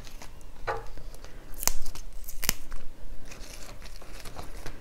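Fresh Thai basil and culantro sprigs being torn apart by hand, with a few sharp, crisp snaps of the stems and soft leaf rustling between.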